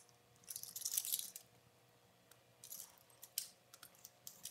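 Spline roller tool pressing rubber spline into the channel of a window screen frame: faint scratchy scraping strokes, the longest from about half a second to a second and a half in, then a few shorter ones near the end.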